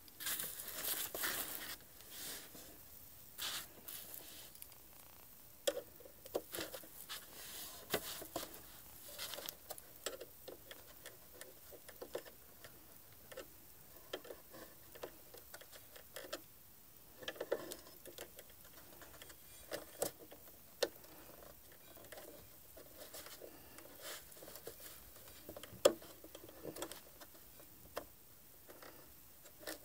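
Scattered small clicks, ticks and scrapes as a small screwdriver works screws inside an opened Xbox Series X and hands handle its plastic and metal parts.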